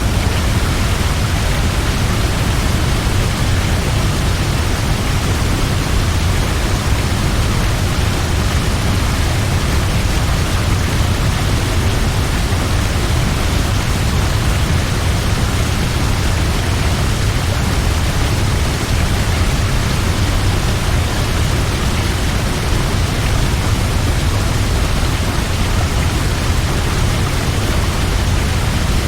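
Large waterfall: a steady, loud rush of falling water with a deep low rumble underneath.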